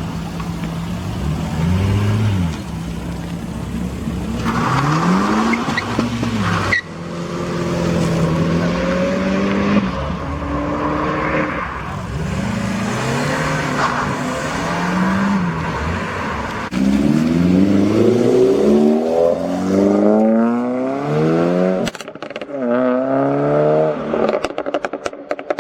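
Modified cars accelerating away one after another, engines revving up and dropping back through the gears in repeated rising pulls. Near the end a rapid string of sharp pops and crackles from an exhaust.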